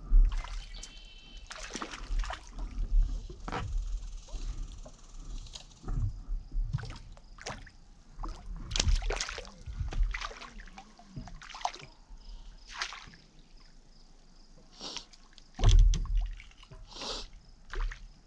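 Water sloshing and lapping against a paddleboard, with irregular knocks and rustles as the person aboard shifts and handles gear. There is a louder bump on the board near the end.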